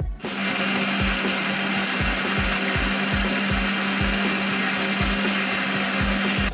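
Electric mixer grinder (mixie) running at full speed, blending jackfruit pulp with sugar and condensed milk into a shake: a loud, steady whir with a constant motor hum. It switches on just after the start and cuts off right at the end.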